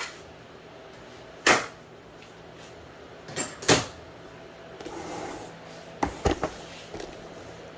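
A few separate knocks and clicks of things being handled: a sharp knock about a second and a half in, two more near four seconds, and a quick cluster of clicks about six seconds in.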